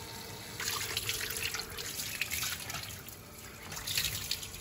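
A tap running steadily into a sink basin, with splashing from about half a second in as hands scoop the water up to wash the face.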